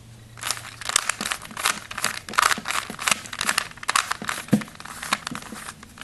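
Plastic Rubik's Cube layers being turned in quick succession by hand: a rapid, irregular run of clicks and clacks, starting about half a second in.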